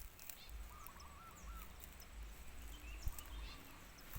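Small birds chirping: a quick run of short looping notes about a second in, then a few higher chirps around the middle, over a faint low rumble.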